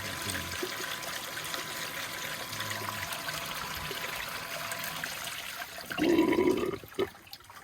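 Water trickling and pouring steadily. It ends about six seconds in with a short louder sound, after which it falls much quieter.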